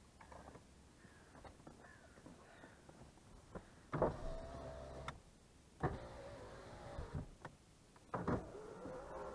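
Mercedes-Benz W124 power window motor run in three short goes from about four seconds in. Each go starts with a click of the switch and a steady whine for a second or so, then stops: the reglued window switches working.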